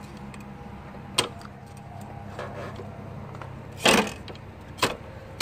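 A few sharp metallic clicks and taps of hand tools working on parts in a car's engine bay, the loudest about four seconds in, over a steady low hum.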